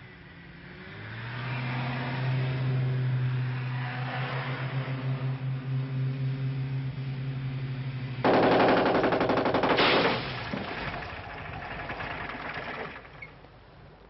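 Large vintage saloon car's engine running as it drives over rough ground. About eight seconds in, a sudden, loud burst of rapid machine-gun fire lasts about two seconds, followed by a rough rattling noise that dies away near the end.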